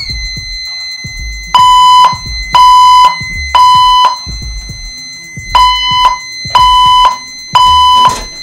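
Fire alarm speaker strobes (Wheelock, Gentex, System Sensor and EST) sounding the temporal-three evacuation tone as the system goes into alarm from a pulled station. The pattern is three half-second beeps a second apart, a pause of about a second and a half, then three more. A steady high-pitched tone runs underneath from the start.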